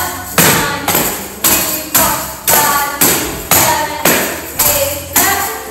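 A tambourine struck in a steady rhythm, about twice a second, each hit giving a sharp crack and a bright jingle ring that fades quickly, over faint background music.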